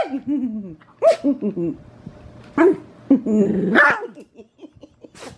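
Bichon frise barking and growling in play over a plastic bag: several short arching barks, then a longer, rougher growl about three to four seconds in.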